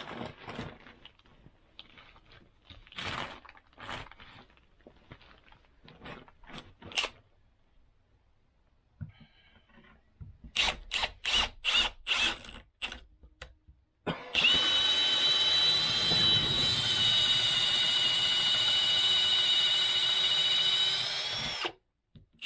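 Handling and rustling with scattered knocks, then a cordless drill runs steadily for about seven seconds with a high whine as it bores a hole for the cable through the wood, its pitch rising slightly just before it stops.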